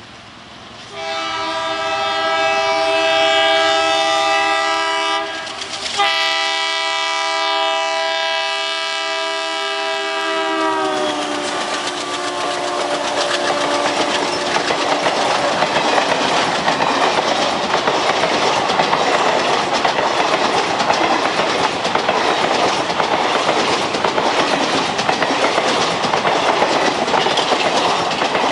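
WDM3D diesel locomotive's horn sounding two long blasts, the second sliding down in pitch as the locomotive goes by. Then the coaches of an express passenger train roll past with a steady clickety-clack of wheels over the rail joints.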